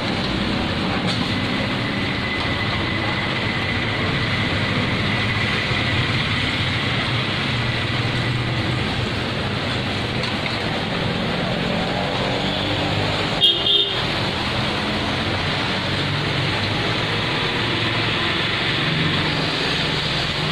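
Steady street traffic noise with vehicle engines running, and a short horn toot about thirteen seconds in.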